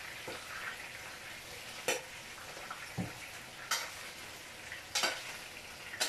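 Greens frying in a pot with a steady sizzle, stirred with a utensil that knocks against the pot roughly once a second.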